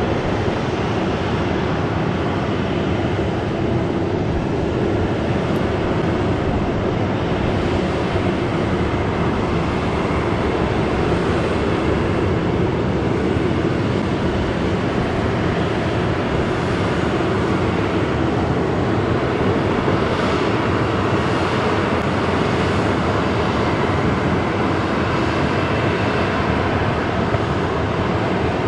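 Boeing 737-800's CFM56 jet engines running at taxi idle: a steady, even rumble with a faint hum.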